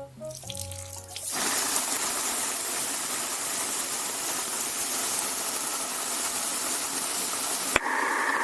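Background music, then about a second in a loud, steady rush of water spraying from a leaking rusted steel water pipe. Near the end it changes abruptly after a click to a narrower hiss.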